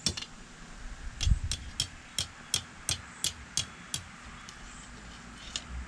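Hand hammer striking a hot steel hay-rake tine on an anvil: one blow, then a steady run of about nine ringing blows at roughly three a second, and a single blow near the end.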